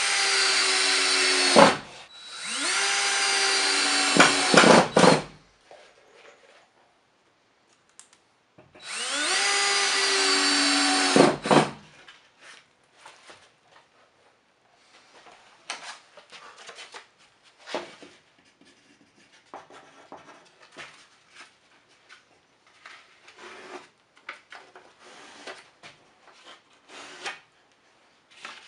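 Cordless drill driving screws into wood, in three runs of a few seconds each that rise in pitch as the motor spins up. This is followed by faint light knocks and rustling as pieces are handled.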